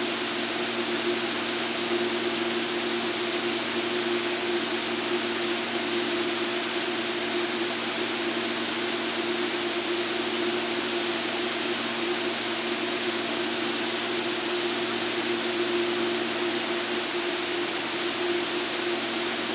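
Steady drone of the Extra 300L's piston engine and propeller heard inside the closed cockpit, with rushing air and several constant hum tones, holding an even pitch and level at steady power.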